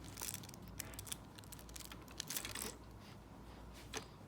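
Faint scattered clicks and rustles, with a sharper click near the end.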